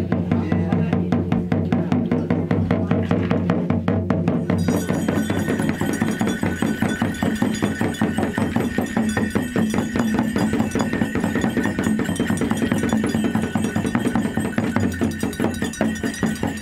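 Nepalese shaman's frame drum beaten in a fast, even rhythm over a low steady drone; steady high ringing tones join in about four and a half seconds in. This is the drumming the shaman uses to go into trance.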